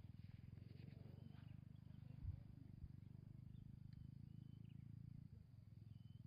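A faint, low, fast and steady pulsing call from an animal, with a few faint short high chirps over it and a soft thump about two seconds in.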